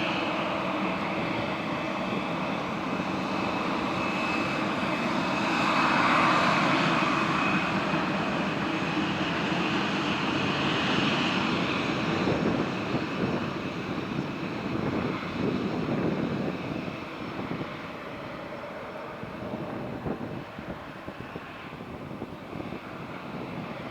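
Boeing 737-800's CFM56 jet engines at takeoff thrust, a steady jet noise with a thin whine that peaks about six seconds in and then fades as the airliner climbs away. In the second half, gusts of wind buffet the microphone.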